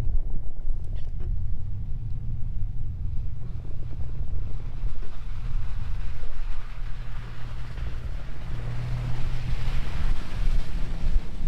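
4x4 truck's engine running steadily on a snowy off-road trail, with a hiss that grows louder near the end.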